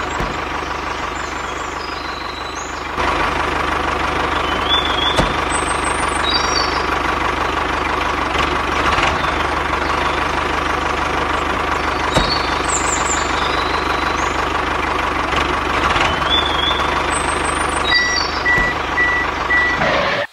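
Tractor engine running steadily, louder from about 3 seconds in. Short bird chirps come and go over it, and a short run of even beeps sounds near the end.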